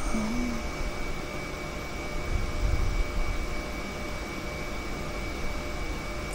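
Steady background hiss and low hum with a thin, constant high-pitched whine, and a brief low hum-like sound right at the start.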